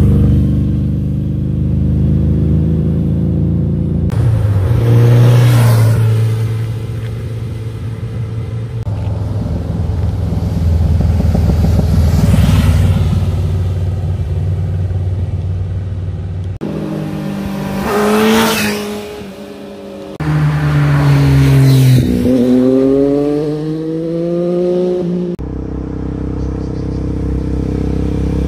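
Motorcycle engines passing one after another, revving up and down through the gears, their pitch climbing and falling as each bike goes by. The sound changes abruptly several times as one pass gives way to the next.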